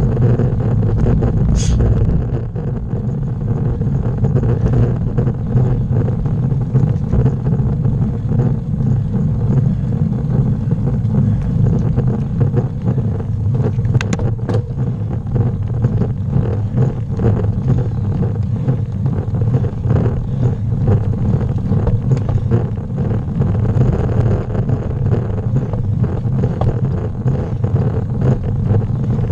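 Steady wind rumble buffeting the camera microphone over the hum of a road bike's tyres rolling on rough asphalt, with two sharp clicks about halfway through.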